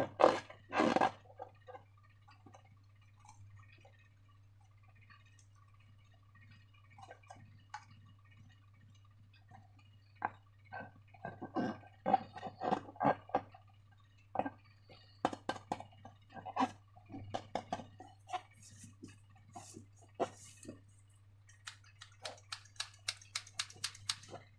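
Slime being handled and squished: scattered short wet, sticky clicks and crackles, sparse at first and denser in the second half, ending in a quick run of small clicks.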